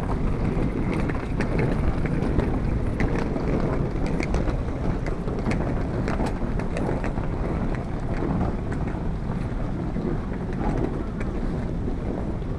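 Wind buffeting the microphone with a steady low rumble, over scattered light clicks and taps.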